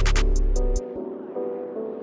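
Background music: a drum beat with deep bass cuts out just under a second in, leaving a repeating chord pattern.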